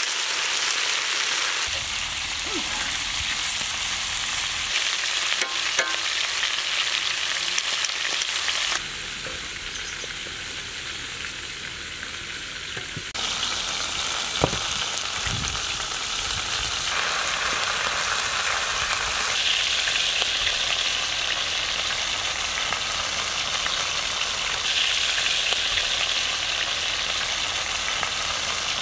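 Chicken drumsticks sizzling steadily as they fry in oil in a wide pan, with a few sharp clicks of a metal spatula against the pan about five to eight seconds in.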